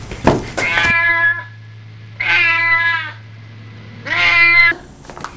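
A domestic cat meowing three times, each meow a separate drawn-out call of about half a second to a second.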